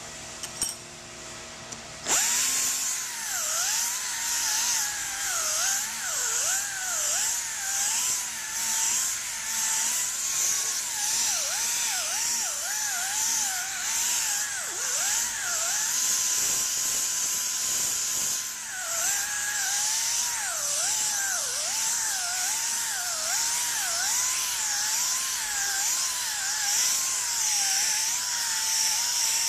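Handheld stone polisher with a diamond turbo pad grinding a granite countertop. It starts about two seconds in, then runs with a high whine whose pitch dips and recovers again and again under a steady hiss.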